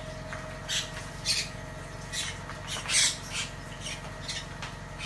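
Packaging being handled: short, irregular crinkling rustles, about a dozen over a few seconds.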